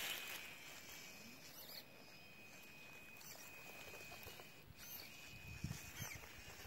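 WPL C24 RC crawler truck creeping over a concrete slab: faint scratching and rustling of its tyres over grit and dry debris, with a thin steady high-pitched whine and a few soft bumps near the end.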